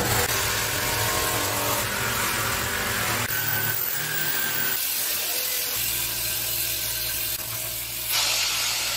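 Electric buffing tools grinding the worn rubber off an old tyre casing: a motor-driven rasp buffing machine, then a hand-held rotary grinder with a thin steady whine, over a constant motor hum. The sound changes abruptly a few times.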